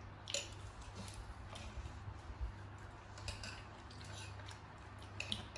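Faint, scattered light clicks and taps of dishes and utensils, a second or more apart, over a low steady hum.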